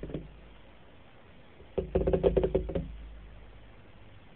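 A burst of rapid knocking, about a second long, starting a little under two seconds in.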